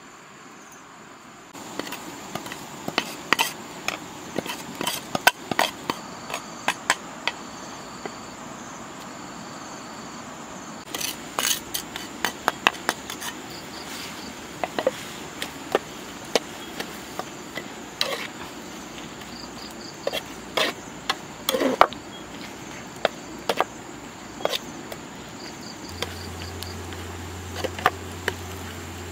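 A metal spatula scraping and knocking against an iron pan as mushrooms are stir-fried over a wood fire, in irregular clusters of clicks. Insects chirp steadily throughout.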